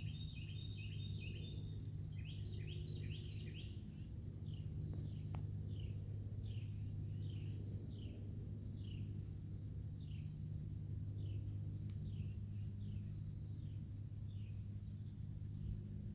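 Backyard birds chirping: a quick flurry of overlapping chirps in the first few seconds, then a long series of short, falling notes, about one or two a second. A steady low hum runs underneath.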